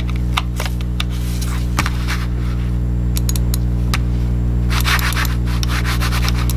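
Logitech G Pro gaming mouse slid back and forth on a cloth mouse pad: a rapid rubbing scrape that sets in about five seconds in, after a few scattered clicks and taps. A steady low hum runs underneath.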